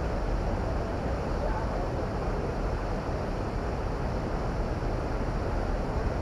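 A steady rushing noise with a strong low rumble, and faint voices of young people talking in the distance.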